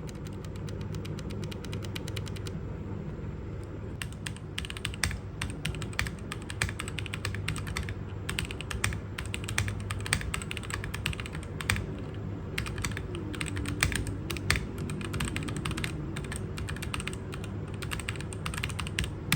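Typing on a JEDEL KL-141 68-key mechanical keyboard with red linear switches: a run of keystroke clacks, sparse for the first few seconds, then quick and continuous.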